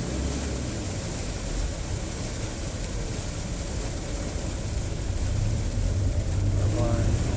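Sandstorm wind blowing hard, a steady rushing noise with heavy low rumble from the wind buffeting the microphone.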